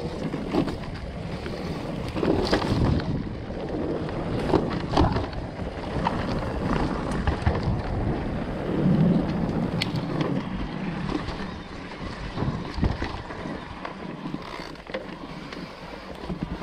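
Electric mountain bike (Orbea Wild FS) descending a rough dirt trail: tyres rolling over dirt and roots, with frequent knocks and rattles of the bike over bumps and wind on the microphone.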